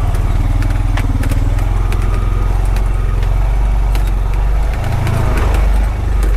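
Honda Pioneer 520 side-by-side's single-cylinder engine running steadily at low speed, its note dipping briefly about five seconds in, with scattered sharp clicks and knocks over it.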